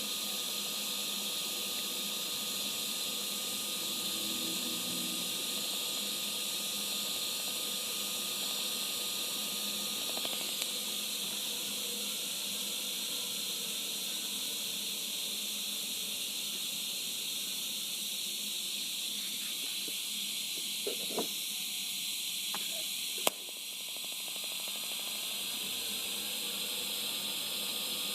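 TIG welding arc hissing steadily. About 23 seconds in there is a sharp click and a brief drop, then the sound builds back up gradually.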